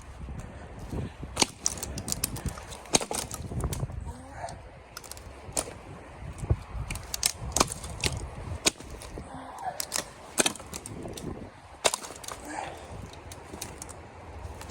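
Sharp, irregular wood cracks and snaps, a dozen or so spread unevenly, over a low steady rumble.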